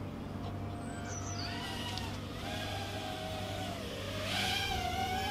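Happymodel Larva X HD 2.5-inch quadcopter in flight, its small brushless motors and 65 mm props whining, the pitch rising and falling as the throttle changes.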